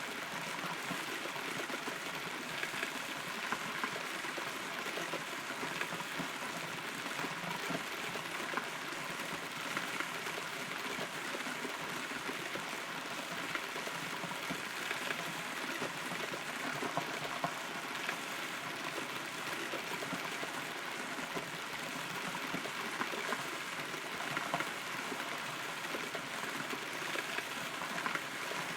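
Steady rain heard from inside a hollow, rotten tree trunk, with scattered louder drops striking close by.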